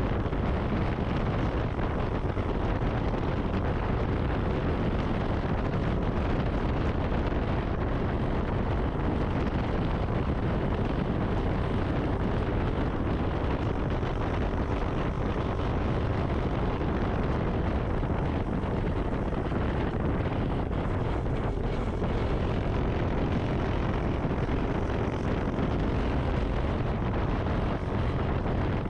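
Steady wind rushing over the microphone of a moving motorcycle, with road and engine noise underneath; the level holds even and unbroken throughout.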